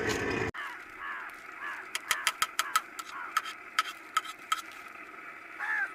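Crows cawing a few times, faint at first with a louder caw near the end. A quick run of sharp clicks or taps sounds in the middle.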